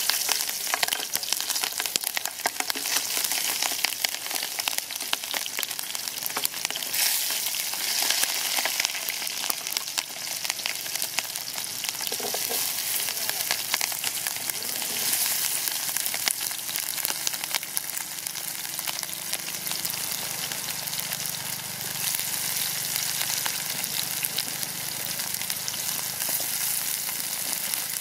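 Green chillies, onions and capsicum sizzling and spitting in hot oil in an aluminium pot: a dense crackling hiss that swells at moments as more vegetables go in.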